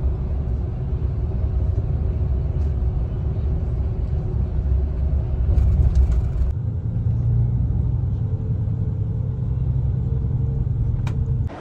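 Steady low rumble and road noise heard from inside a moving road vehicle travelling on a motorway. About six and a half seconds in, the rumble changes to a steadier, lower hum.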